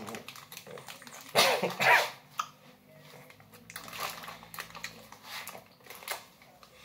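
A man's wordless vocal reaction to a very sour gummy candy: a loud strained groan about a second and a half in, then quieter grunts and breaths.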